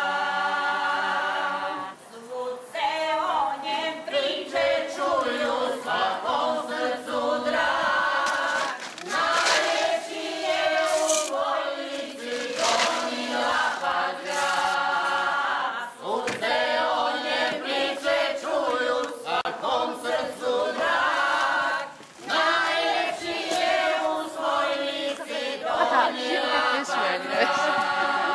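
A choir of voices singing a Lika folk song in Croatian, in long held phrases with short breaths between lines.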